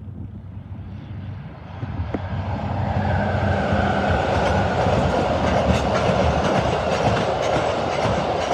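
A diesel-hauled train approaching and passing. The locomotive's engine grows louder over the first three seconds, then gives way to steady wheel noise from the cars rolling by, with regular clicks over rail joints.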